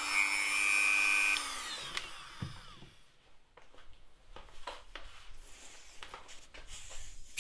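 Dremel rotary tool running with a steady whine, then switched off, its pitch falling as it spins down over about a second and a half. A few light clicks of handling follow.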